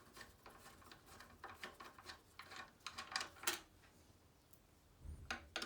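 Quiet, scattered small metallic clicks and scrapes of an Allen key undoing and lifting out the bolts that hold the fuel pump in the tank, with a soft thump about five seconds in.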